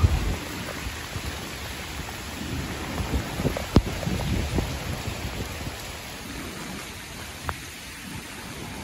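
Cyclone wind gusting against the phone's microphone: a steady rushing hiss under uneven low rumbling buffets, with a few sharp clicks in the middle.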